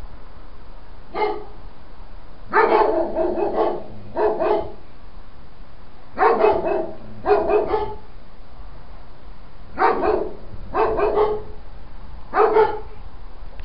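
Dogs barking in bursts of several barks at a time, with pauses of a second or two between bursts, persistent night-time nuisance barking.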